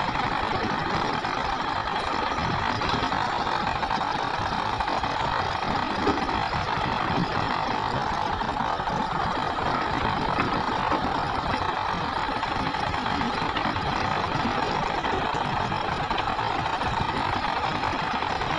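Diesel engines of hydraulic mining excavators running with a steady, even drone while they dig.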